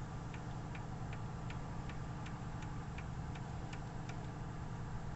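Ford Ka engine idling with a sharp, regular knock, about three a second, over a steady low hum. The knock is the engine noise the mechanic says could come from excess clearance (folga) in the bottom end rather than only the head gasket.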